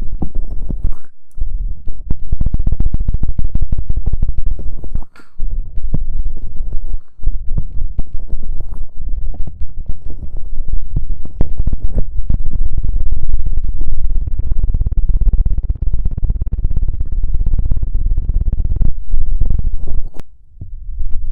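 Close-microphone ASMR trigger sound: something rubbed or scratched right against the microphone, giving a loud, deep rumble full of rapid fine crackle. It comes in long stretches with short breaks about a second in, about five and seven seconds in, and near the end.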